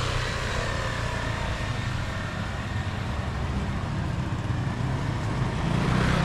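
Motorcycles passing on a street, their engines running over a steady low rumble of street noise.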